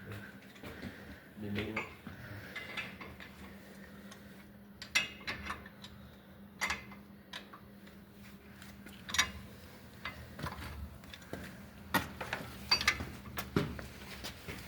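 Scattered metal clinks and knocks of hand tools, a wrench working on a truck's steering arm fastening, over a faint steady hum.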